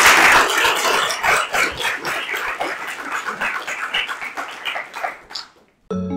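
Audience applauding, loudest at first and thinning out, dying away about five and a half seconds in. Music starts just before the end.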